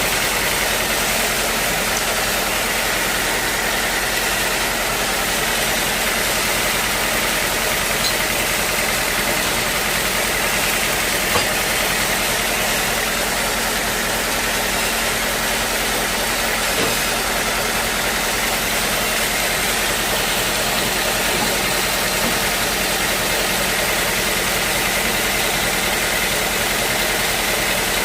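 Sawmill machinery running steadily, with a steady high whine over it.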